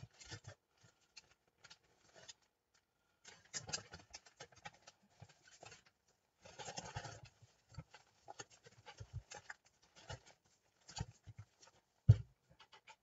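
Pages of a book of stencils being leafed through, rustling and scraping in irregular bursts with small clicks, and a single low thump near the end.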